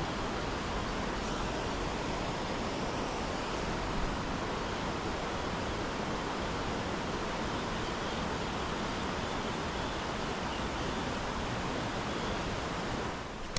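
Steady rushing noise of fast-flowing river water, even and unbroken, dipping briefly near the end.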